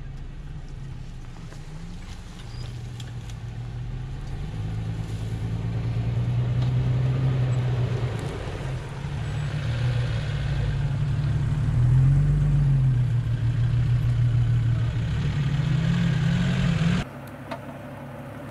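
Toyota FJ Cruiser's V6 engine running at low speed on a dirt track, growing louder as it comes close, its pitch rising and falling a little with the throttle. About a second before the end the sound drops abruptly to a quieter engine note.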